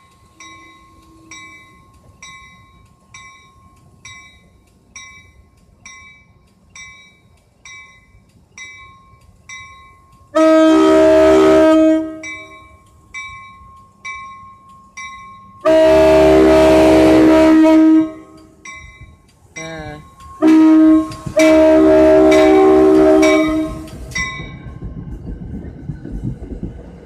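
Grade-crossing warning bell ringing a little more than once a second, then the locomotive's multi-chime horn sounding the crossing pattern: long, long, short, long. The horn blasts are the loudest thing. Near the end the train rumbles past.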